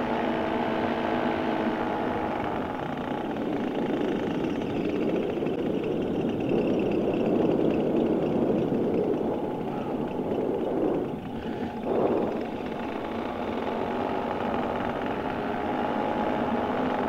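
Paramotor's two-stroke engine and propeller running steadily in flight, with a brief dip in level about eleven seconds in.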